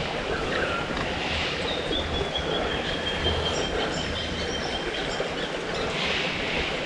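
Steady rushing of river water flowing around a wading angler. A thin, high, slightly falling tone is held for about four seconds in the middle.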